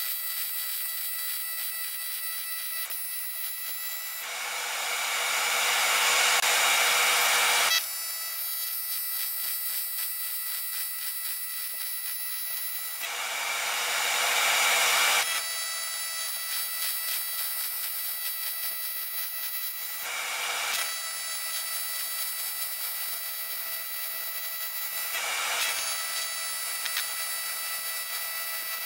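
AC TIG welding arc on aluminum buzzing steadily with an even hiss. It swells louder and hissier twice, about four and about thirteen seconds in, for a few seconds each, with two shorter swells later on.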